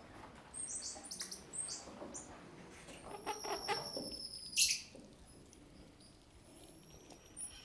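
Squirrel monkeys calling with short, very high-pitched chirps and peeps. Near the middle comes one long, thin peep that ends in a sharp click.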